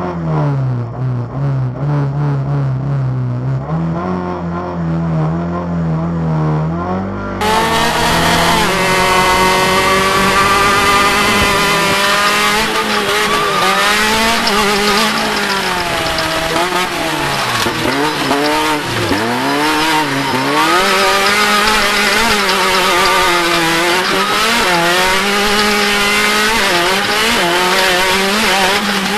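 Off-road race vehicle's engine under hard racing load, its pitch climbing and dropping again and again with throttle and gear changes, with tyre and dirt noise. For the first seven seconds the sound is quieter and steadier, then it suddenly becomes much louder and fuller.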